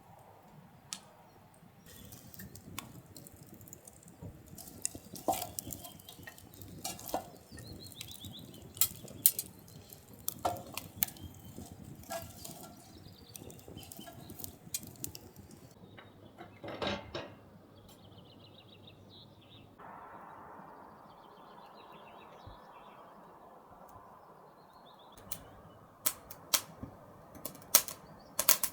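Clinks and knocks of dishes, pots and cutlery being handled, irregular and sometimes sharp. A steady hiss comes in about two-thirds of the way through, with faint bird chirps in the background.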